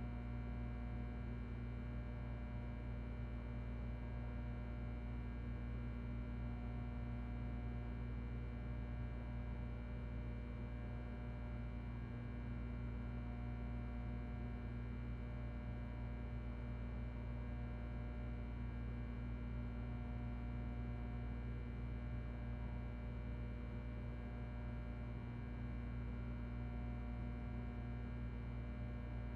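Ventilation fan running steadily with a low electrical hum. Many faint steady tones sit above the hum, and a higher faint tone comes and goes every several seconds.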